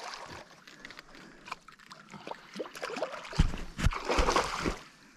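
A hooked payara thrashing at the water surface, splashing, with the louder splashes in the second half.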